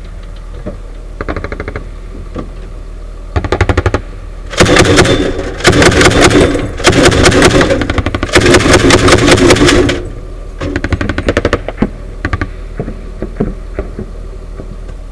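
Automatic gunfire at close range in long bursts, heaviest and nearly continuous from about four and a half to ten seconds in, with shorter bursts before and after.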